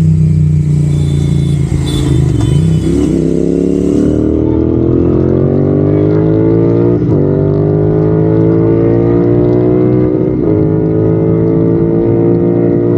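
Royal Enfield Continental GT 650's 648 cc parallel-twin engine pulling under acceleration, its pitch climbing slowly and steadily after the first few seconds, with two brief breaks about seven and ten seconds in.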